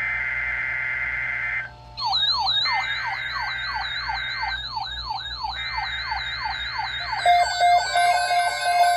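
NOAA Weather Radio emergency alert: buzzy data-burst tones of the SAME alert header, joined about two seconds in by a fast-warbling electronic alert siren. Near the end, steady alert tones sound together with the siren.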